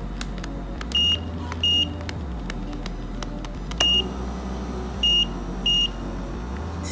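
Electronic hand massager's control panel beeping as its buttons are pressed: five short, identical high beeps, two about a second in and three more later, over a steady low hum.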